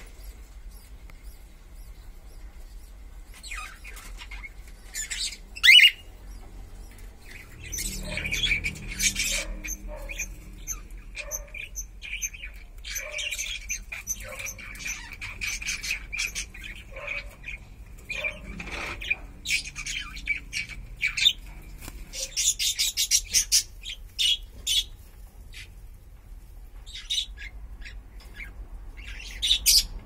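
Cockatiels chirping and squawking, a run of short calls with a louder, sharp call about six seconds in.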